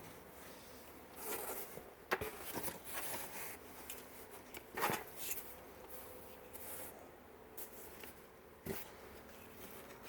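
Faint, intermittent rustling of a dress being handled, in a few short scuffs and rustles a second or two apart, the loudest about halfway through.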